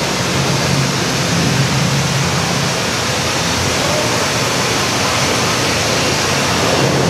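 Steady rush of falling water from an indoor rainforest exhibit's simulated rainstorm and waterfall.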